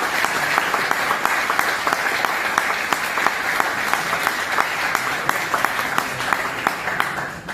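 Audience applauding, a steady patter of many hand claps that dies away near the end.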